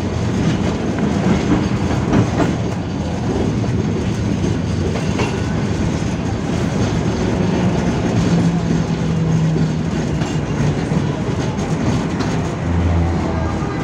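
71-605 (KTM-5) tram running between stops, heard from on board: a steady rumble of wheels on rails with a few faint knocks. A steady hum rises out of it for a couple of seconds past the middle.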